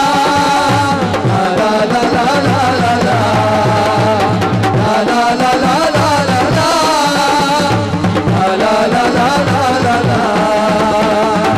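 Instrumental interlude of live Punjabi folk music: a wavering, ornamented melody over a repeating drum beat.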